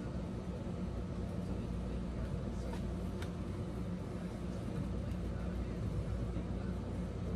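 Steady low hum of shop background noise, with a few faint light ticks about three seconds in.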